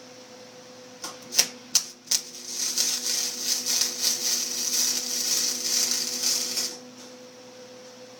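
Welding arc struck with a few sharp cracks about a second in, then a steady crackling sizzle for about four seconds that stops abruptly. A steady low hum runs underneath.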